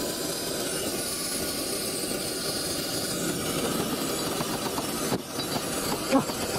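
Oxy-fuel brazing torch burning steadily against a copper refrigerant joint, a steady hiss of flame, with a brief louder sound about six seconds in.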